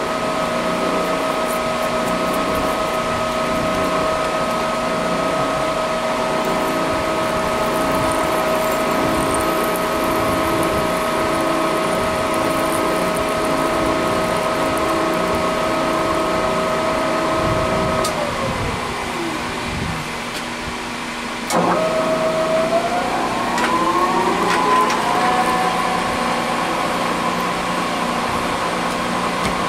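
Mill spindle motor turning a spiral point tap slowly, about 60 RPM, power-tapping a 1/2-20 thread into a steel block, with a steady motor whine. About 18 s in the whine winds down and stops; after a click the motor starts again in reverse, its whine rising to a higher steady pitch as the tap is run back out at a faster speed.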